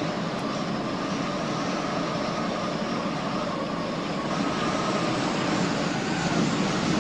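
Steady blowing wind, a sound effect for a gale, with a faint whistling tone in it.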